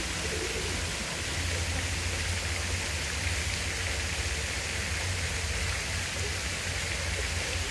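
Park fountain's water splashing steadily into its pool, a constant hiss, over a steady low rumble.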